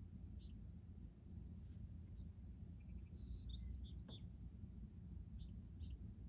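Quiet steady low hum of a room, with faint, short, high chirps scattered through it and a single sharp click about four seconds in.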